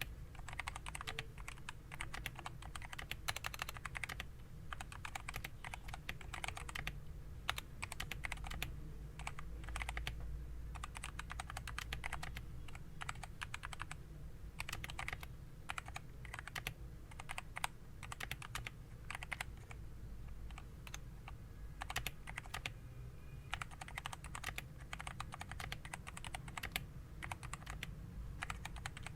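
Typing on a Dareu EK925 II full-size keyboard with Dareu's own optical switches: quick runs of key clicks with short pauses between them.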